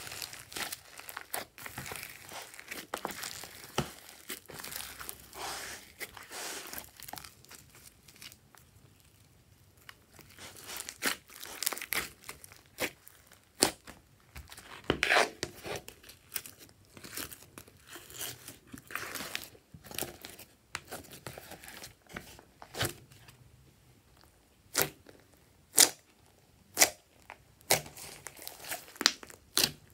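Hands kneading and squishing glossy slime mixed with foam beads: a steady sticky crackling, broken by sharp pops that come loudest and most spaced out in the last several seconds.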